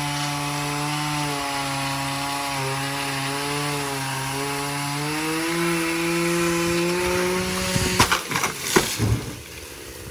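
Ditch Witch SK1050 mini skid steer engine running steadily, its pitch drifting and rising a little about halfway through. Near the end come several sharp knocks and clunks, and then the engine sound drops away.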